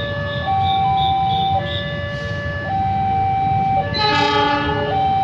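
Railway level-crossing warning alarm sounding, an electronic signal alternating between a higher and a lower tone, each held about a second, as a train approaches. About four seconds in, the approaching diesel locomotive gives a short blast on its horn.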